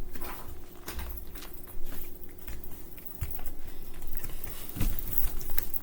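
A cat biting and chewing at catnip: irregular small clicks and scuffs, with a few soft thumps.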